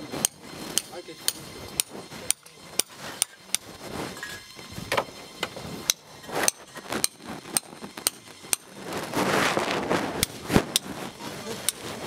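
Hand hammer striking stone in sharp, ringing blows, about two a second, as rock is broken up by hand. About nine seconds in, a second-long burst of rushing noise rises under the blows, followed by the loudest single hit.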